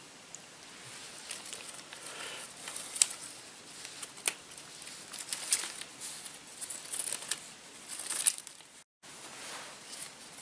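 Stiff birch bark strips crackling and rustling as they are woven over and under each other by hand, with scattered sharp clicks.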